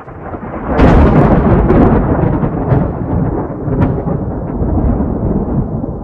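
A deep, thunder-like rumbling sound effect under an animated logo intro: it swells sharply about a second in, with scattered crackles, then slowly eases off.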